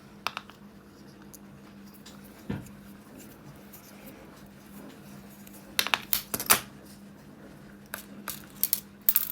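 Small metal folding knife with metal handle scales being handled for measuring: scattered light metallic clicks and taps, a cluster of them a little past the middle and more near the end, over a faint steady hum.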